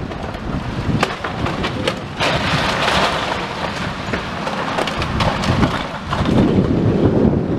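Brick and masonry rubble cracking and clattering down as a long-reach demolition excavator's grab tears at the top of a wall, with a rush of falling debris from about two seconds in until about six. Wind rumbles on the microphone at the start and end.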